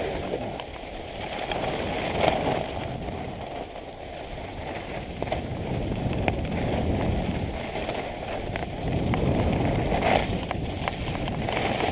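Skis sliding and scraping over groomed snow on a downhill run, with wind rushing over the camera's microphone. The noise swells and eases every few seconds, with a few sharp clicks.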